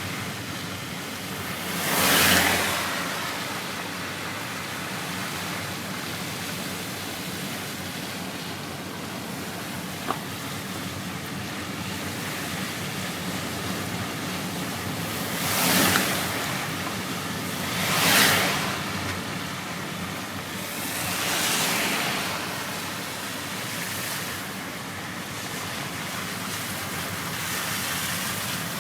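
Steady rush of heavy rain and surface floodwater on a road. Several vehicles pass through the flooded road, each a swish of water that swells and fades over about a second, the loudest about two seconds in and two close together around the middle.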